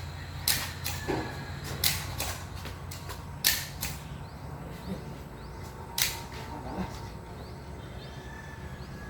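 Gunshots at a shooting range: four sharp cracks at uneven intervals, about half a second, two, three and a half and six seconds in, with a few fainter shots between them.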